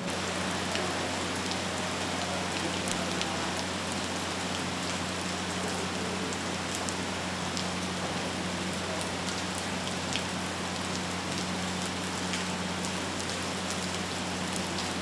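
Steady rain falling, with many separate drops ticking and splashing throughout, over a steady low hum.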